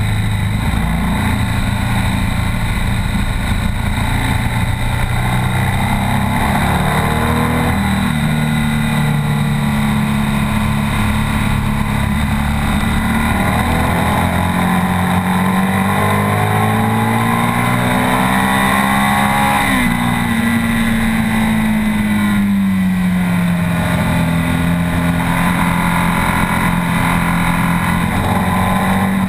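BMW R 1200 S flat-twin boxer engine heard from the rider's seat at track speed, over a rush of wind noise. The revs hold, then climb steadily for several seconds past the middle, drop sharply, fall away and settle.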